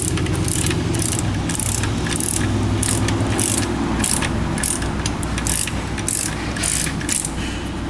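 Ratchet wrench being worked in quick strokes, its pawl clicking in bursts about twice a second, stopping shortly before the end, over a steady low hum.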